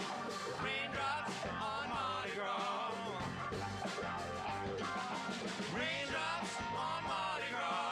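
Live rock band playing a rock and roll song: a wavering lead melody over bass and a steady drum beat.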